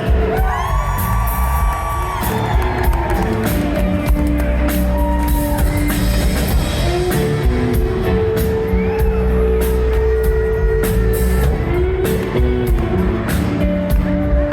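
Live rock band playing, with a steady drum beat under sustained instrumental notes.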